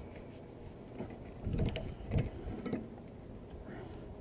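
A few light clicks and knocks of hand tools and metal parts while a brass water-heater valve is worked by hand to break a part loose.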